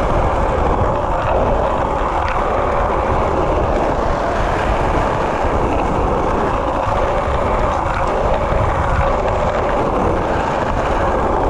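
Skateboard wheels rolling over pavement, a steady rolling noise with no pauses.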